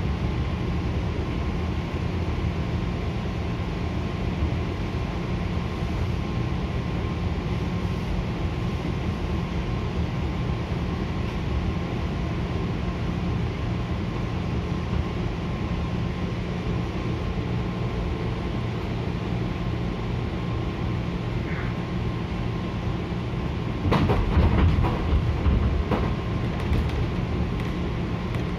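Interior running noise of a JR 205-0 series electric multiple unit: traction motors and wheels on rail, a steady rumble with a constant hum. About 24 seconds in, a louder spell of clattering knocks as the wheels cross track joints.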